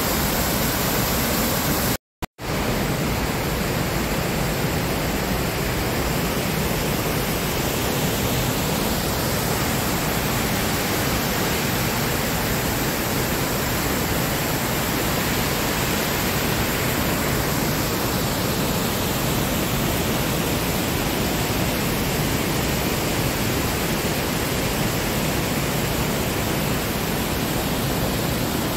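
Steady rush of white water pouring over the rocky cascades of the Rhine Falls, briefly cut off to silence about two seconds in.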